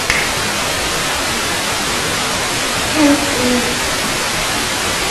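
Steady loud hiss of TV-style static. About three seconds in, a brief low two-note pitched sound rises out of the static, the second note lower than the first.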